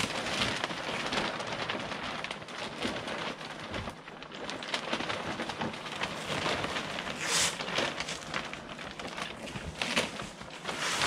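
Heavy plastic shrink wrap crinkling and rustling as it is pulled off a boat's hull and gathered up, with a few louder bursts of crackling.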